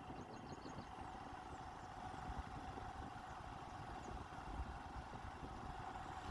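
A steady, low motor-like hum over a low rumble, with a few faint high chirps in the first second and again about four seconds in.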